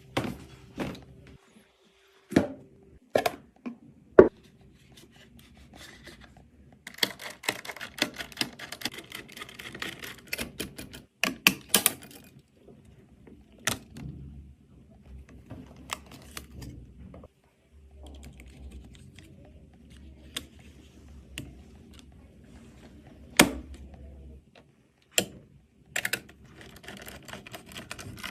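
Clicks, knocks and clatter of computer parts being handled and fitted together during a PC build, with a dense stretch of rapid clattering from about seven to twelve seconds in.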